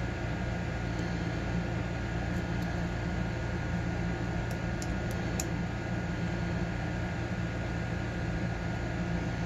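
Steady fan-like hum and hiss, with a few faint, light clicks of a lock pick working the pins of an ASSA padlock cylinder, most of them bunched from about four and a half to five and a half seconds in.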